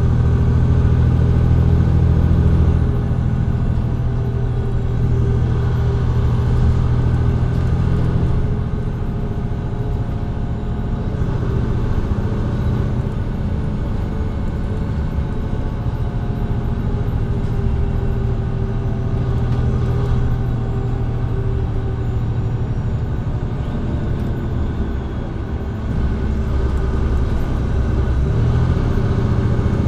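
Diesel engine of a Mercedes-Benz Citaro C2G hybrid articulated bus, heard from the rear seats in front of the engine as the bus drives. It eases off about three seconds in and pulls harder again near the end, where the Voith automatic gearbox downshifts for a kickdown.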